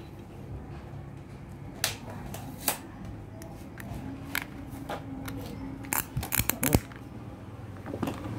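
Sharp clicks and rattles of handling, as alligator clip leads are fitted onto the plastic battery mount of a Makita cordless rotary hammer. A cluster of quick clicks comes near the end, over a steady low hum.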